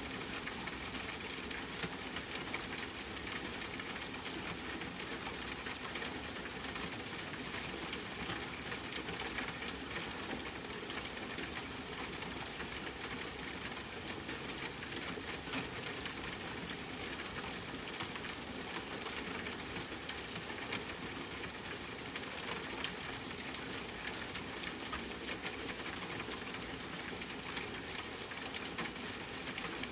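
Steady rain falling, a continuous hiss with many fine crackling drop ticks.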